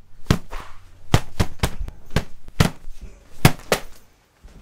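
Phonebook slapped against a leg close to a microphone, making punch sound effects: about nine hard, dull thwacks at an uneven pace, four of them in quick succession just after the first second.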